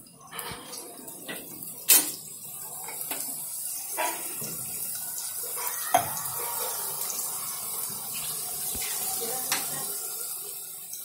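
Potato fries deep-frying in hot oil, a steady sizzle, with a few sharp clicks or knocks, the loudest about two seconds in.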